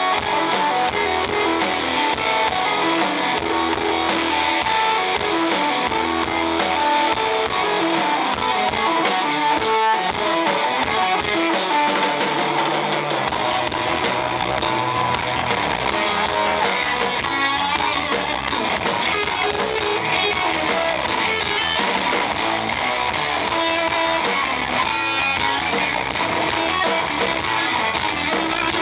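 A live band playing with guitars, loud and continuous. The recording is heavily distorted: the sound is harsh and overloaded.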